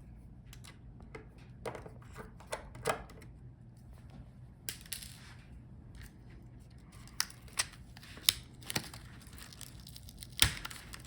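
Scattered small clicks and taps of a screwdriver and small screws being removed from the underside of a laptop palmrest assembly to free the touchpad, with a brief rustle about five seconds in.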